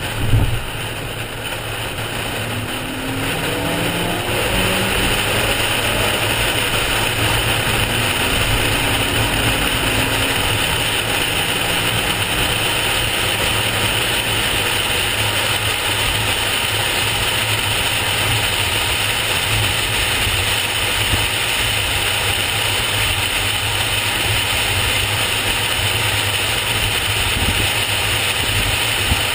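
Car engine and road noise inside a moving car's cabin: a short knock at the start, then the engine rising in pitch as the car accelerates through the gears over the first ten seconds or so, settling into a steady drone of engine, tyres and wind at highway speed.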